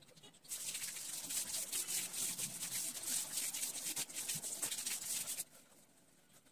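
Fine-tip pen scratching on paper in quick, continuous strokes as small circles are drawn. It starts about half a second in and stops abruptly about a second before the end.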